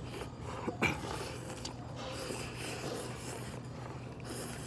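A person slurping pho noodles from chopsticks and a soup spoon: several hissy, drawn-in slurps, a sharp one about a second in and a longer one in the middle, over a steady low hum.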